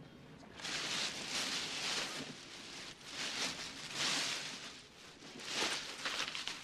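A hand rummaging through a bag full of wallets, rustling in repeated surges that start about half a second in.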